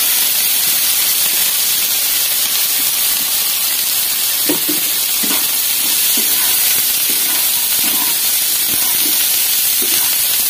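Grated carrot and beetroot sizzling in hot oil in a kadai, a steady loud hiss. From about four seconds in, a spatula scrapes and knocks against the pan as the vegetables are stirred.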